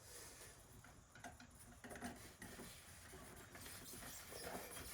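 Near silence with a few faint scattered ticks and taps, hands handling the greenhouse door's hinge parts.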